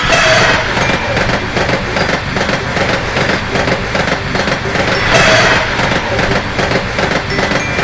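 A train passing: a loud, steady, dense rumble and rattle that starts abruptly and runs on without a break.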